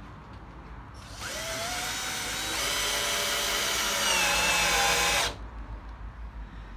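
Cordless electric drill driving a self-drilling screw through a wooden batten into the van's metal floor. The motor whines for about four seconds, getting louder in steps, drops in pitch near the end, then cuts off suddenly.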